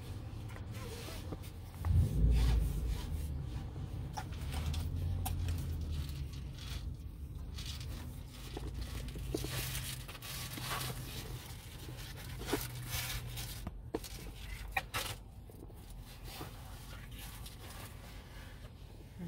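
Low rumble inside a moving car, with rubbing, rustling and clicking close to the microphone and a loud thump about two seconds in.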